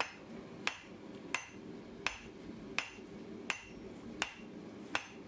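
Hand hammer striking the hot end of a steel round bar, cut from a Ford Transit axle, that stands upright in an anvil's hardie hole. Eight moderate blows at an even pace, about three every two seconds, each with a short metallic ring: the bar is being upset to set shoulders.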